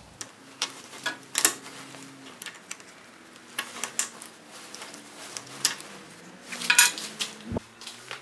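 Hard plastic parts of a 3D-printed featherboard, with its small bolt and washer, clicking and knocking against a metal saw table as the expanding bar is worked into the miter slot. Irregular sharp clicks, the loudest about a second and a half in and again near the end; the distorted plastic piece will not slide into the slot.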